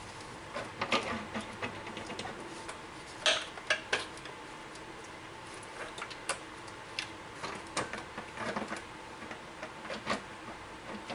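Irregular metallic clinks and clicks, like hand tools and bolts knocking against metal while the work goes on, over a faint steady hum.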